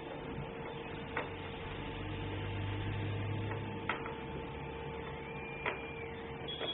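Hand assembly of a smart door lock's screws and metal parts: four separate sharp clicks and taps, and a low drone for a couple of seconds in the middle, over a steady electrical hum.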